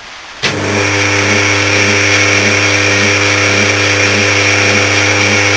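The bare stator of a Danfoss Maneurop MTZ100 refrigeration compressor motor, switched on through about 120 microfarads of run capacitors, gives a loud steady electrical hum. A pulse beats through it about two and a half times a second while the rotor labours to turn. The motor is struggling and "not happy" with too little capacitor kick.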